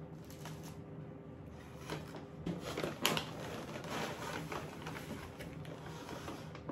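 Paper takeout bag rustling and crinkling as a hand rummages inside it, with a few sharp crackles and light knocks about two to three seconds in.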